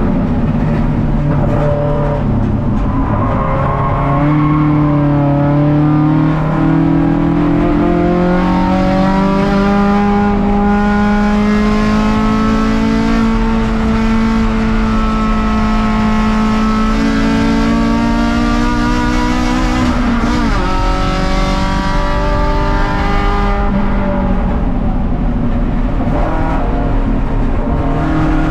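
Toyota 4A-GE four-cylinder race engine heard from inside the stripped, caged cabin, running hard under load with its pitch climbing slowly. The pitch falls sharply about twenty seconds in, dips again a few seconds later, then climbs once more.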